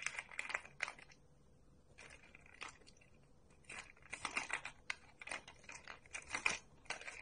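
Light plastic clicking and rattling of balls knocking around inside a plastic track cat toy as a kitten bats at them. The clicks come in irregular clusters, busier in the second half.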